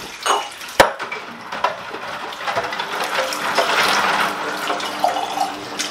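Warm tap water running into and over a glass jar as it is rinsed in a stainless steel sink, with a sharp clink of glass about a second in and a few lighter knocks.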